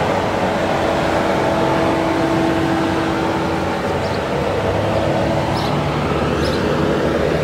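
Škoda Rapid's 1.6-litre naturally aspirated inline-four petrol engine idling steadily, heard from outside the car.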